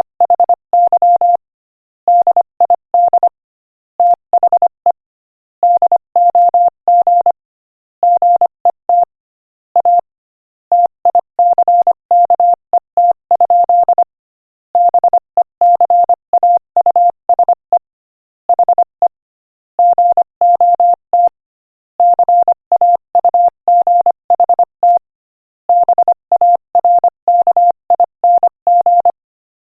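Morse code sent as a single-pitch beeping tone at 25 words per minute: rapid short and long beeps grouped into letters, with slightly longer gaps between the groups.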